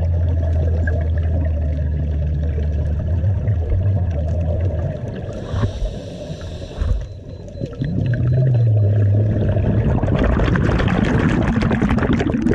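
Underwater sound of a scuba diver breathing through a regulator and exhaling bubbles, over a low steady hum. A hissing breath comes about halfway through, and a louder rush of bubbling comes near the end.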